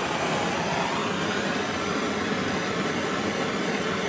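Hand-held gas blowtorch burning with a steady hiss, its flame heating heat-shrink sleeving over a wiring plug.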